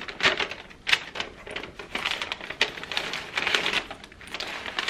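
Tissue paper rustling and crinkling in irregular bursts as a pair of shoes is unwrapped inside a cardboard shoe box.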